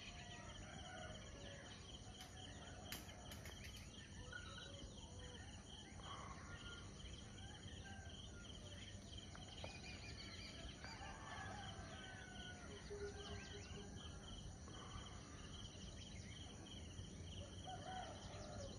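Faint ambience of assorted birds calling and whistling now and then, over a steady chirring of insects.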